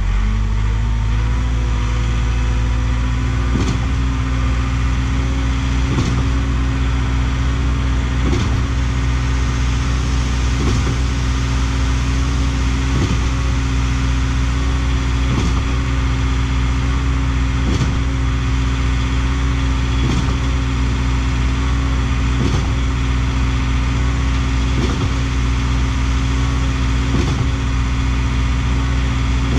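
Schwing trailer concrete pump running: its engine revs up about a second in and then holds steady under load, with a sharp knock about every two and a half seconds as the pump changes stroke, pushing concrete into the line to prime it.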